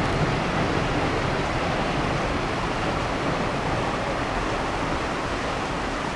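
Steady rushing of a shallow rocky creek, with the rumble of a passing train slowly fading as it moves off.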